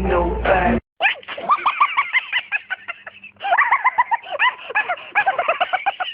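Music cuts off just under a second in. A bird then calls in a rapid run of short rising-and-falling notes, with a brief lull about three seconds in.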